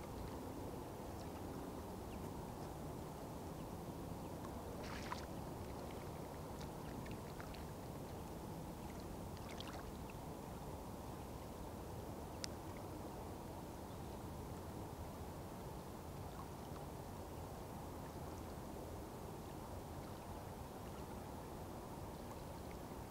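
Steady low hum of distant road traffic, with a few faint short sounds now and then.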